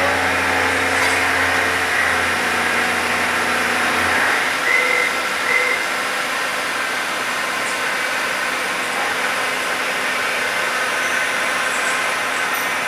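Enshu SBV400 CNC vertical machining centre running: a steady motor hum and whine that stops about four seconds in. Two short high tones follow, then a steady mechanical hiss.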